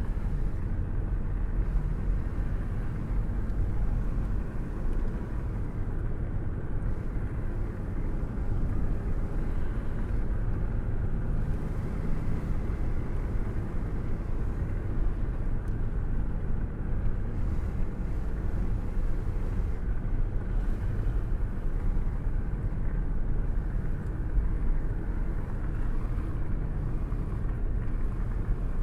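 Steady wind and road rumble of a car cruising with a window open, the airstream rushing past a hand held out of the window. A low, even rumble with no breaks.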